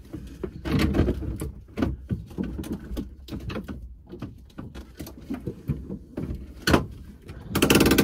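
Irregular clicks, knocks and rattles of a short-throw shifter assembly being handled and worked into the car's center console. There is a sharp click just before the end, then a brief clatter.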